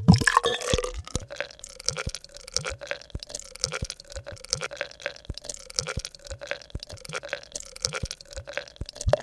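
Beer glugging out of the neck of a freshly opened glass bottle as it is poured, in irregular gulps two or three times a second over a steady hollow tone, with a brief rush at the start.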